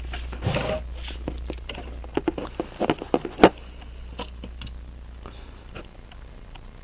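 Small irregular clicks and taps of a pocket watch being handled in its case, bunched about two to three and a half seconds in and ending with one sharper click, over a steady low hum.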